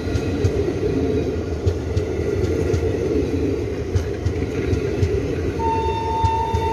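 Passenger coaches of the Chhattisgarh Express running past close by at speed: a steady rumble with repeated clacks of the wheels over rail joints. A steady high whine joins in near the end.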